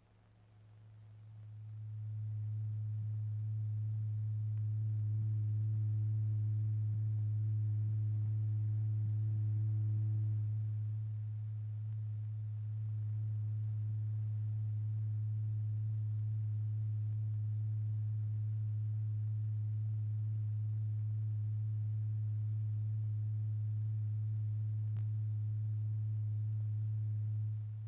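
Low, steady sine tone driving the vibrating diaphragm in a cymatics experiment. It swells up over the first couple of seconds, eases down a little about eleven seconds in, then holds level and drops off near the end: the volume of the same tone is being changed.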